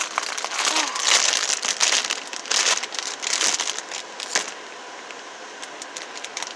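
Packaging crinkling and rustling as it is worked open by hand to get the squishy toy out; the crackling dies down to quieter handling about four and a half seconds in.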